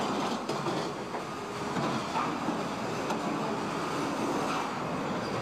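Car-factory assembly-line machinery: a steady mechanical din with scattered clanks and knocks.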